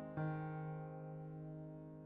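Background piano music: a chord struck just after the start, left ringing and slowly fading away.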